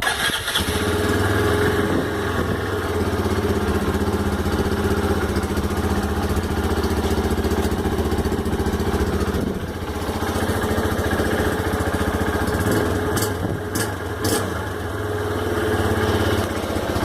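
Honda CG 150 Fan's single-cylinder four-stroke engine idling through an aftermarket Roncar exhaust, giving a steady, deep exhaust note.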